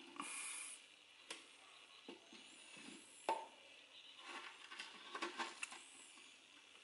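Faint handling sounds of cleaning a small aquarium by hand: a short hissing scrape near the start, a sharp click about three seconds in, then a run of small clicks and knocks.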